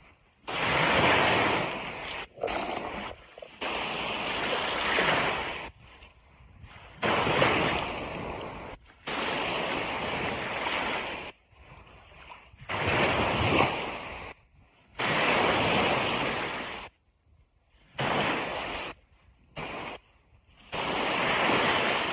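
Ocean waves breaking and washing on a beach, coming in surges of one to three seconds that start and stop abruptly, with much quieter breaks between them.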